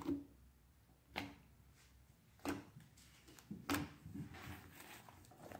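Butter slime being pressed and stretched by hand on a tabletop, making small pops and clicks about once a second, then a quicker run of them near the end.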